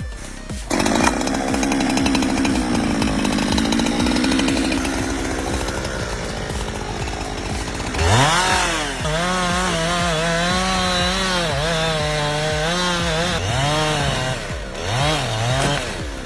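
Chainsaw running and cutting. About halfway through, the engine revs up sharply, then its pitch wavers up and down and drops back twice near the end as the load changes.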